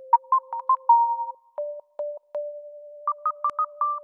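Short electronic intro jingle of plain synthesizer tones: a held lower note that steps up once partway through, under quick runs of short, higher staccato notes.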